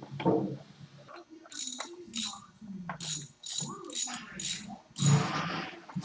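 Ratchet wrench clicking in short repeated strokes, about seven bursts at roughly two a second, the longest near the end.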